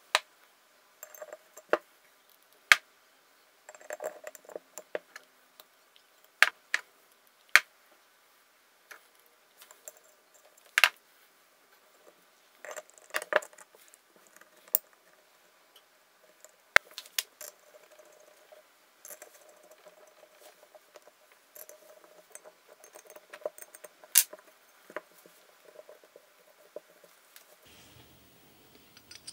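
Small steel parts and the apron casting of a Myford ML7 lathe being handled during reassembly: irregular sharp metallic clicks and knocks as parts are picked up, fitted and set down, with light rustling between them.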